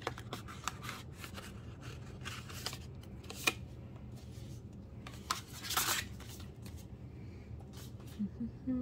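Photocards and poca album packaging being handled: a run of light rustles, taps and clicks, with one sharp click about three and a half seconds in and a longer rustle near six seconds.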